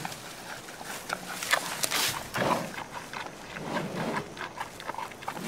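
Red panda calls: a run of short, irregular calls mixed with sharp clicks, busiest around the middle.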